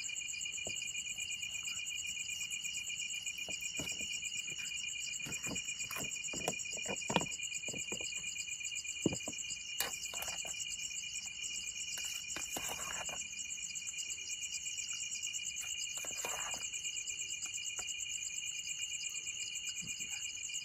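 Insects chirring steadily in two high pitches, with scattered light clicks and knocks from cooking gear being handled.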